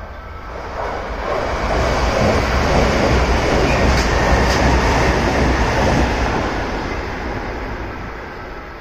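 Kintetsu Minami-Osaka Line electric train running past, building up, holding loud for a few seconds, then fading away. Near the middle, two sharp clicks about half a second apart stand out, typical of wheels passing over rail joints.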